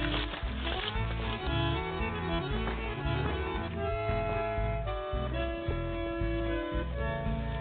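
Instrumental background music with a steady bass beat and held melody notes.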